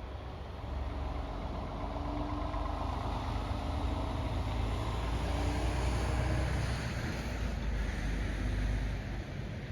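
Distant electronic outdoor warning siren (Hesa Fredrik test signal from CA 370 speakers) heard faintly as a wavering tone, under a heavy low rumble that swells about a second in and falls away near the end.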